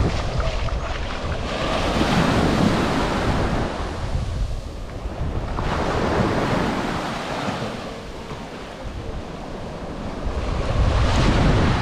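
Sea waves washing onto the shore in slow surges that swell and fade, with the loudest surge near the end, and wind buffeting the microphone.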